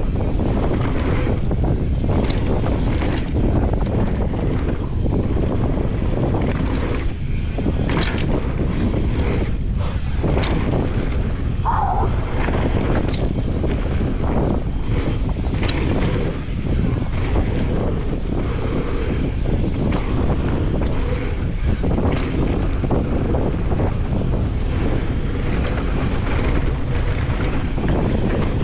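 Mountain bike rolling fast down a dirt flow trail, heard through a GoPro's microphone: steady wind rush on the microphone over tyre noise, with frequent short clicks and knocks as the bike rattles over bumps, and one brief squeak about twelve seconds in.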